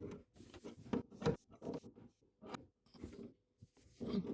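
Adjustable wrench working an old spring door stopper loose from its mount: a series of irregular short metallic clicks and scrapes.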